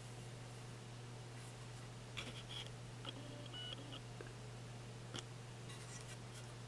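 Quiet room tone with a steady low hum, a few faint clicks, and a brief faint high beeping tone about three seconds in.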